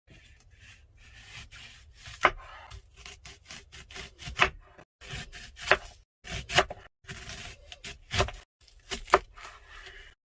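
Kitchen handling sounds: rubbing and scraping with a sharp knock every second or so, broken by short gaps.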